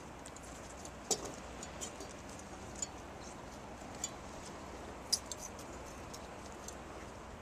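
Metal sampler holders and spiked racks clinking and clicking as they are handled and loaded, light irregular clicks with two sharper ones about a second in and about five seconds in, over a steady background hiss.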